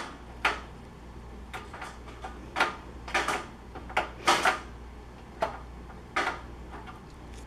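Wire pet playpen rattling and clanking in irregular knocks as a cat and a dog paw and push at its bars.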